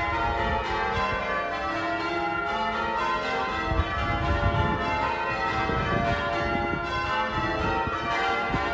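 Wakefield Cathedral's church bells being rung in changes: a continuous peal of overlapping bell strokes that goes on without a break.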